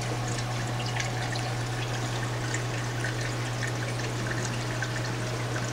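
Aquarium filtration running: water trickling and splashing with small bubbly ticks, over a steady low pump hum.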